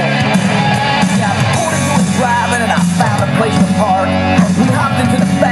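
Rock music with a singing voice, played loud and continuous.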